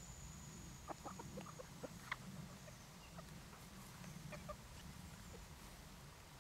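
German bush chickens (Deutsches Buschhuhn) giving faint, short clucks, scattered through and busiest about a second in and again around four seconds, over a low steady background hum.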